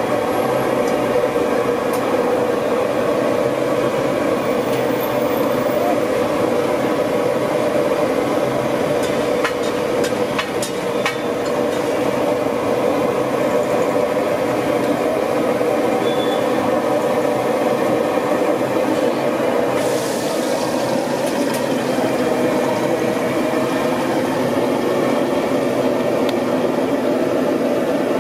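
Steady background din: a continuous rumbling noise with faint voices mixed in, drowning out the quiet handling of the samosa filling.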